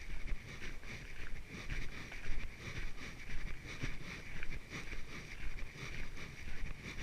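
Footsteps of a person walking at an even pace on a trail, about two steps a second, over a steady hiss.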